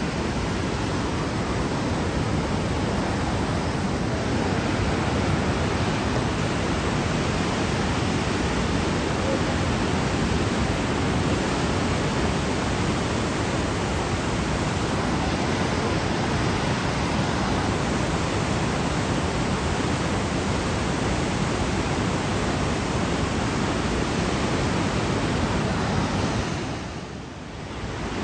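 Steady rushing of a muddy river in flood, a dense even noise that dips briefly near the end.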